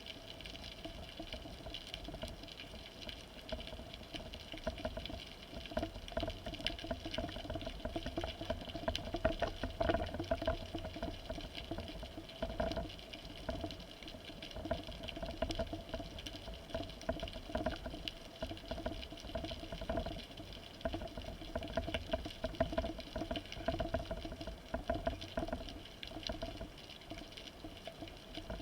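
Underwater ambience heard through a camera housing: a steady hiss and a constant low hum, with dense, irregular faint crackling throughout.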